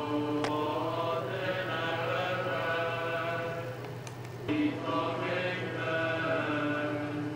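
A choir singing a slow liturgical chant in long held notes, heard through a television's speaker, with a short break about four seconds in and a steady low hum underneath.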